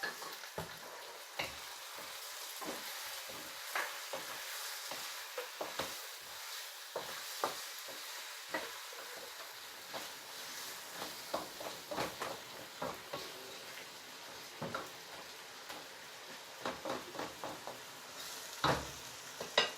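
Onions with ginger and garlic frying in oil in a pan, with a steady sizzle, while a spoon stirs and knocks against the pan at irregular intervals.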